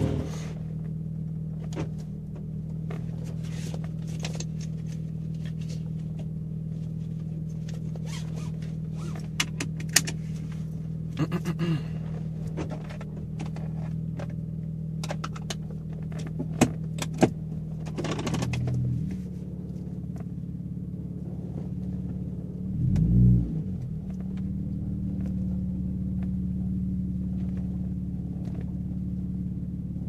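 2003 Honda Accord coupe's 3.0-litre V6 idling through an OBX catback exhaust with the resonator and muffler deleted, heard from inside the cabin as a steady low drone. A few sharp clicks come midway, and about three-quarters of the way in there is one brief rev.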